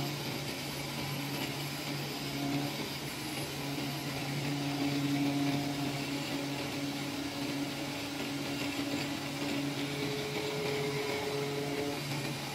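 CNC oscillating knife cutter with a 400 W oscillating knife running as it grooves 50 mm polyester fiber felt board, a steady mechanical hum. A higher tone joins the hum about ten seconds in.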